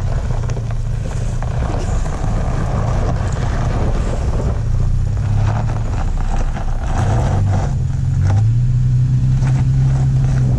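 Off-road truck engine running under load on a trail climb, a steady low hum whose pitch steps up about eight seconds in as it revs harder, with rough crunching noise over it.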